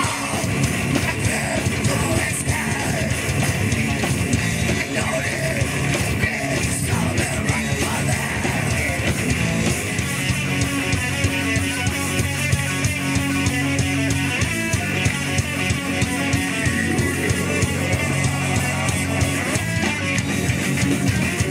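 Live death-thrash metal band playing: distorted electric guitars, bass and a drum kit, with long held low chords in the second half.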